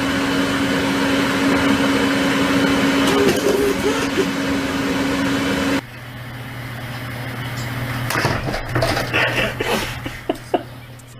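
A loud, steady machine hum with one strong tone over a noisy rush, like a small motor running. About six seconds in it cuts off abruptly, leaving a quieter low hum with scattered clicks and a few short squeaks.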